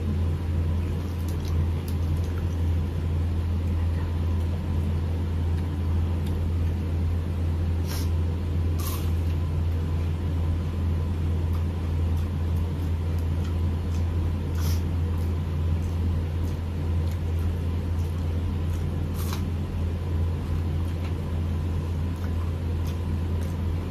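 A steady low hum with a handful of light clicks of tableware, such as a spoon against a bowl, spread out while people eat.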